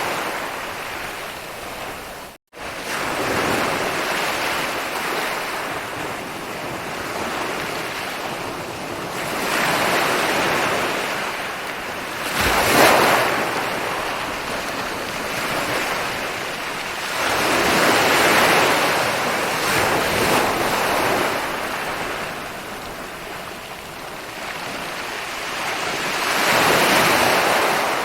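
Ocean waves rolling onto a shore, surging and easing in slow swells every few seconds. The sound cuts out for an instant about two seconds in.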